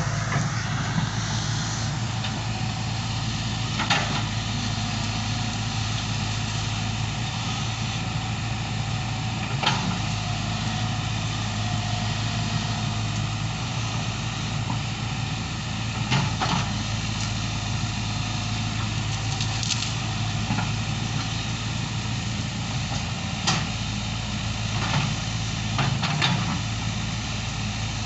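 Excavator's diesel engine running steadily with a low hum, with a few short sharp knocks at irregular intervals.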